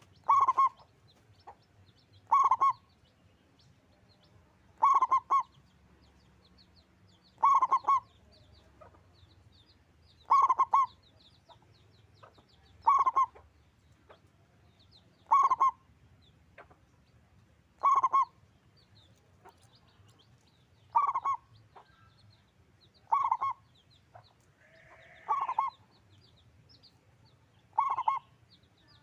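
Male zebra dove (local perkutut) singing its cooing song, a short phrase repeated about every two and a half seconds, a dozen times over.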